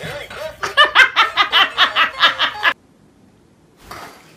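High-pitched laughter, a rapid, even run of about ten 'ha' bursts at roughly five a second, which stops abruptly about two-thirds of the way through.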